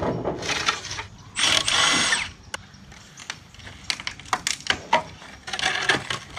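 Wooden shipping crate being taken apart: scattered knocks and clatter of boards being pulled off and handled, with one harsh noise lasting under a second about a second and a half in.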